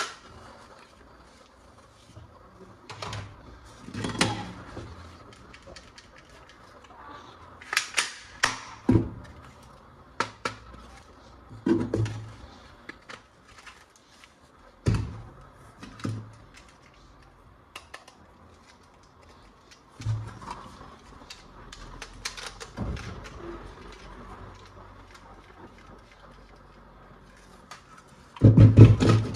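Hard plastic toy pieces and packaging being handled: irregular clicks, knocks and rustles with short pauses between them, and one louder thump near the end.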